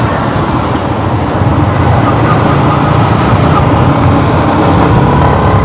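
Yamaha MT-15's single-cylinder engine running steadily in third gear while riding, under heavy wind rush on the microphone; its note rises slightly near the end.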